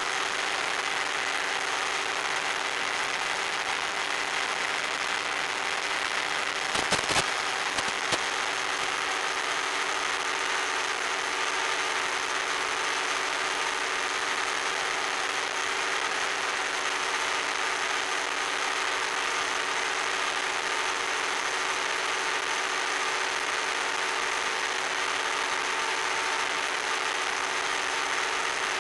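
Onboard sound of an RC plane in cruising flight: its motor and propeller run at a steady pitch under a constant rush of wind. A few sharp crackles break in about seven seconds in.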